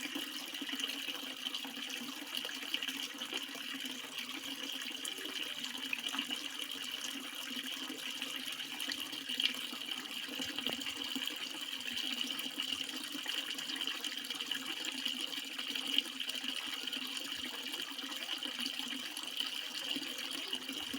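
Water flowing steadily with an even rushing sound, with two brief louder splashes about nine and a half and sixteen seconds in.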